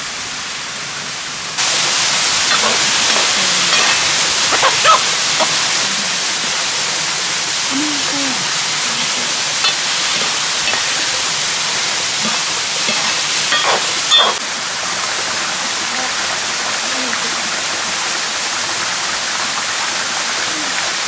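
Steady rushing hiss from a shallow mountain stream running past an open wood-fire kitchen and a pan of meat cooking over the flames. A few light metal clinks come from a steel ladle stirring in the pan.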